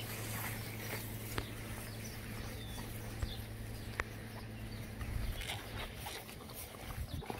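Boston terrier puppies giving a few faint, short squeaks over a steady low hum.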